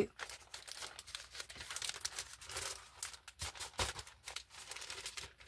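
Plastic packaging crinkling and rustling as it is handled, in irregular crackles.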